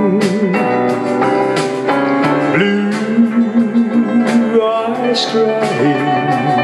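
A country ballad played on a backing track with guitar, and a man singing live over it. His held, wavering note ends about half a second in.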